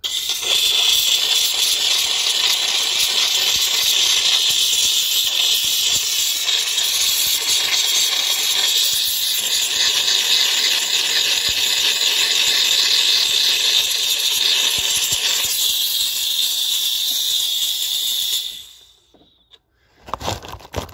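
Vaporella steam cleaner jetting steam over a car engine bay to rinse off degreaser: a loud, steady hiss that cuts off a couple of seconds before the end.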